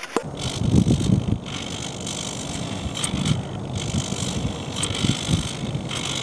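Wind buffeting an outdoor microphone: a rough low rumble that swells in gusts about a second in and again around three and five seconds.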